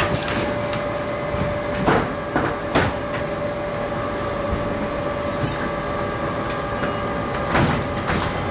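Lisbon tram running along its rails, with a steady whine and a few sharp clacks, the clearest about two and three seconds in and again near the end.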